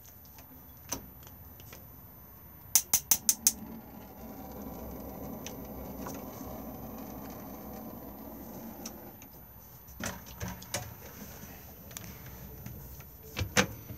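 Caravan gas oven being lit: its spark igniter clicks five times in quick succession, then the oven burner catches and burns with a soft, steady rush for about five seconds. A few light knocks follow near the end.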